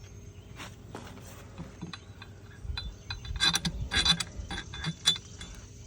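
Clicking and clinking of hard plastic parts and screws being handled and fitted together during assembly, with a cluster of sharp clicks and clatters about three to five seconds in.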